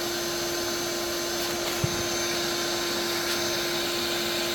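Bee vacuum motor running steadily with a constant whine, and a single soft knock about two seconds in.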